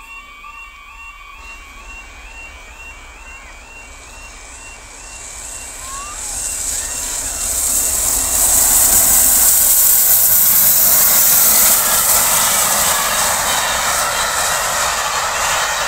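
A level crossing's warbling warning alarm sounds as the steam locomotive Tornado, a Peppercorn A1 Pacific, approaches at speed. The rush of the passing train builds from about five seconds in and is loudest from about eight to twelve seconds as the engine goes by, then carries on a little quieter as the carriages keep rolling past.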